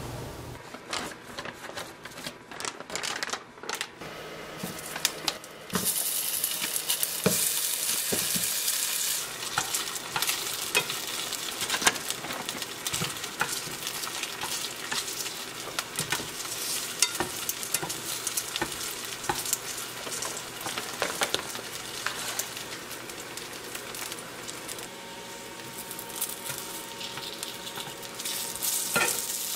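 Dumplings sizzling in oil in a ceramic-coated frying pan, with sharp clicks and taps of tongs against the pan as they are laid in and flipped. The sizzling starts about six seconds in and then runs steadily.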